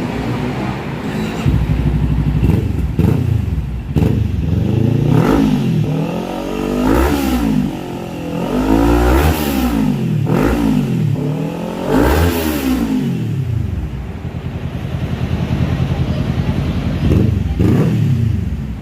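Motorcycle engine fitted with an aftermarket Villain M1 exhaust, idling and then blipped about five times in quick succession, the pitch rising and falling with each rev. It settles back to idle, then gives one more short blip near the end.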